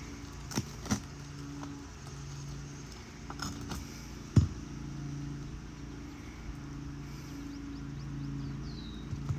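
Sharp clicks and knocks of hand roofing tools working at asphalt shingles: a snake tool and roofing hammer prying to break the shingle seals. The loudest knock comes about four and a half seconds in. A low hum that swells and fades every second or so runs underneath.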